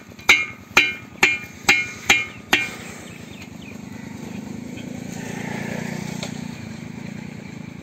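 Metal clanks like hammer blows, six strikes about two a second, each ringing briefly, stopping about two and a half seconds in. A low steady hum follows, swelling and then fading.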